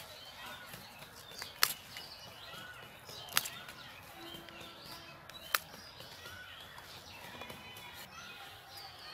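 Crisp stalks of cauliflower leaves snapping as they are broken off the head by hand, three sharp cracks about two seconds apart. Small birds chirp faintly in the background.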